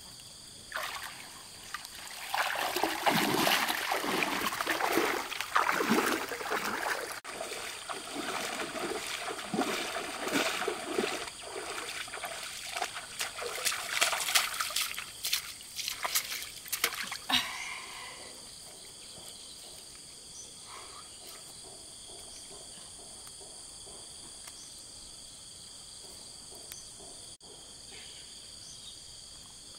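Water splashing and trickling in shallow lake water, in irregular bursts as a triangular fishing net is worked, for about the first two thirds. It then stops, leaving a steady, faint, high-pitched background.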